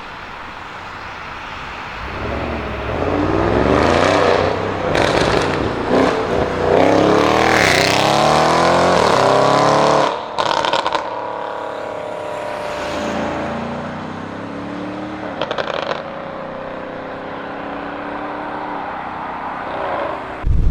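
ABT-tuned Audi RS6 Avant C7's twin-turbo V8 through a Milltek exhaust accelerating hard, engine pitch climbing again and again through several upshifts. About ten seconds in it lifts off sharply with exhaust crackles and pops, then settles into a steadier, lower drone with another burst of crackles a few seconds later.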